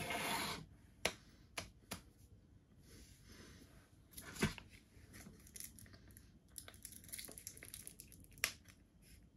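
Plastic straw wrapper tearing and crinkling as a drinks-pouch straw is unwrapped and pushed into a Capri Sun foil pouch, with a rustling burst at the start, scattered light clicks and taps, and a sharp click near the end.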